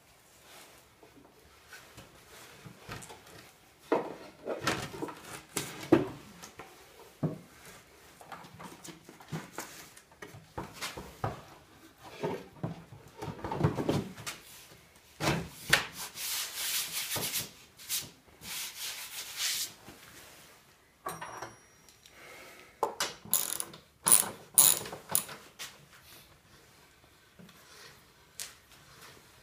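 A wooden router lift and router are handled and fitted into a plywood router table and its insert plate, with irregular wooden knocks, bumps and scraping. Near the end comes a run of sharp clicks from a ratchet wrench turning the lift.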